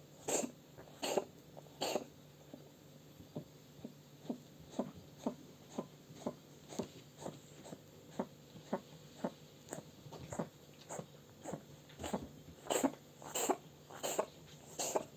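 Oriental cat coughing: a long run of short, dry hacks, about two a second, strongest in the first two seconds and again near the end. The uploader puts this kind of cough down to the breed's long trachea and throat structure, often just throat-clearing.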